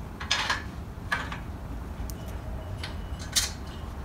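A few separate metal clinks and short scrapes as a go-kart pedal assembly is worked onto its greased steel shaft and a T-bar hex key is fitted to its retaining screw.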